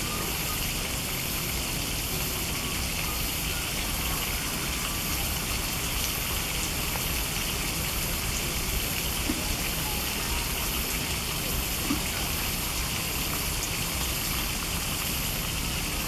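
Steady rushing of a shallow stream of running water, with a faint high-pitched pulsing repeating roughly every three-quarters of a second above it.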